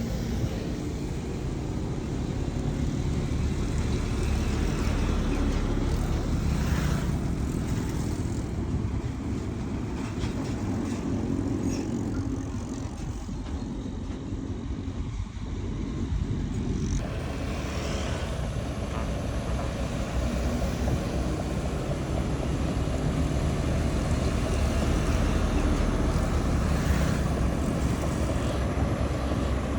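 Heavy diesel earthmoving machinery running steadily, with a deep engine rumble; about halfway through the sound abruptly turns harsher and fuller.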